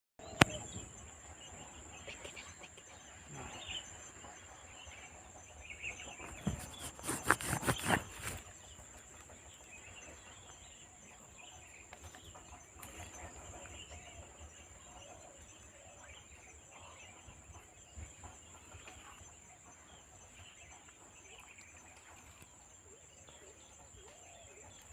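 Outdoor ambience with scattered bird calls over a steady high-pitched whine. A cluster of sharp knocks comes about six to eight seconds in.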